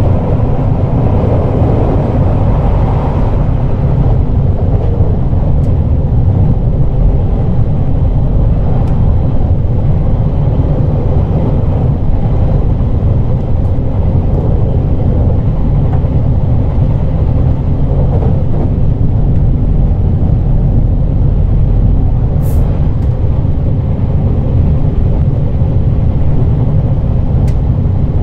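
Running sound of a JR Kyushu 817 series electric train heard from inside the car: a steady, loud rumble of wheels on rail with no rise or fall in pitch. A couple of brief sharp clicks come near the end.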